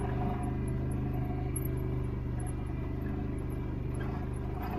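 Small off-road vehicle's engine running at a steady, unchanging speed while riding along.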